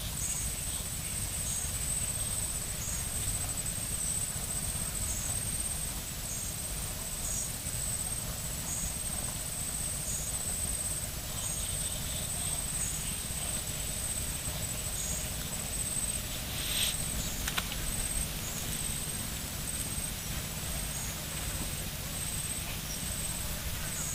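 Outdoor ambience: wind rumbling on the microphone, with an insect buzzing in high, evenly repeated pulses about once a second. A brief click about two-thirds of the way through.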